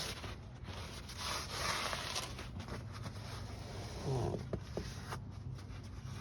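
Cloth rag rustling and rubbing, with a few light scrapes, loudest about a second or two in.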